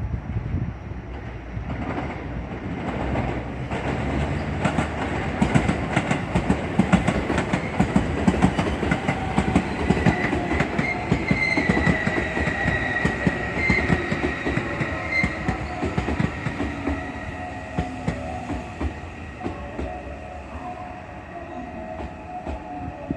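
Electric commuter train moving through the station, its wheels clacking rapidly over rail joints, with a high wheel squeal in the middle before the train noise slowly fades.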